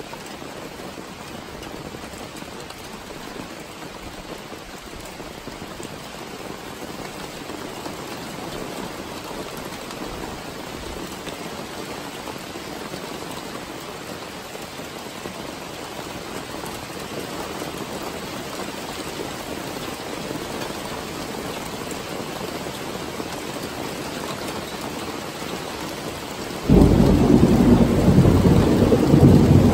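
Steady rain falling through a thunderstorm, slowly growing heavier. About 27 seconds in, a loud clap of thunder breaks in suddenly and keeps rumbling.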